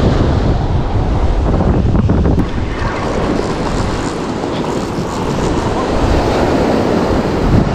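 Surf washing up the beach with wind buffeting the microphone. There is a heavy low rumble for the first couple of seconds, then a steadier hiss of breaking and receding water.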